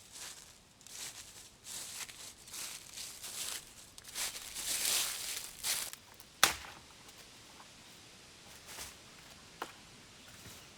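Irregular rustling and crunching in forest undergrowth for about six seconds, then one sharp crack and a fainter one a few seconds later.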